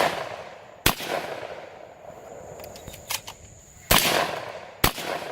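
Shotgun firing three shots, about a second in, about four seconds in and just under a second after that, each with a trailing echo; a few lighter clicks come just after three seconds.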